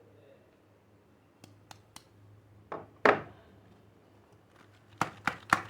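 Hands handling a bar of soap: a few light clicks, one louder knock about three seconds in, then a quick run of sharp strikes near the end, about four a second, as a knife chops into the soap.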